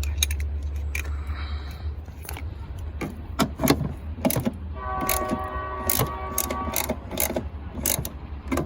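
Hand ratchet clicking in short irregular strokes as a 10 mm bolt is run in and tightened, with a quick run of rapid clicks for about two seconds past the middle.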